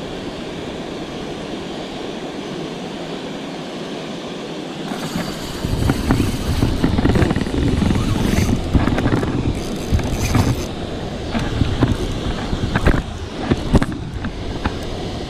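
Steady rush of water pouring over a low dam spillway. From about five seconds in, a louder rumble with irregular knocks of a hand handling the chest-worn action camera takes over.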